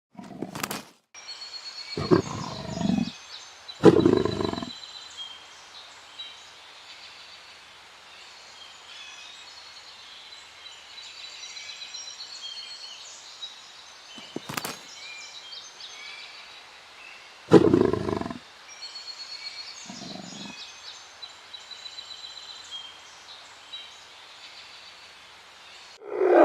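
Leopard calling in several bouts of deep roaring calls, with faint birds and insects chirping steadily in the background.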